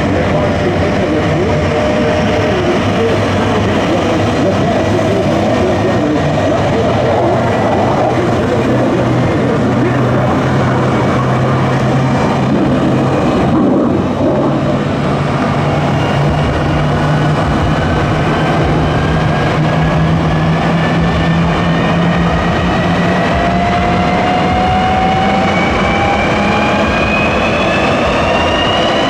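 F-35A Lightning II jet running on the ramp: a loud, steady roar with whining tones over a low drone. Over the last several seconds a whine rises steadily in pitch.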